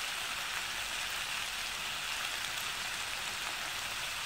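Ivy gourd and onion sizzling steadily as they fry in sesame oil in a kadai, an even hiss with no stirring.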